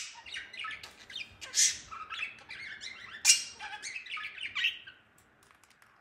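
Budgerigar chattering in a quick run of chirps with loud, sharp squawks, stopping about five seconds in; a few faint clicks follow.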